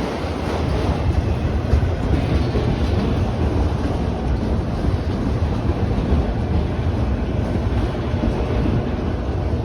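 Freight train of autorack cars rolling steadily past at a grade crossing: a continuous loud rumble of wheels on rail.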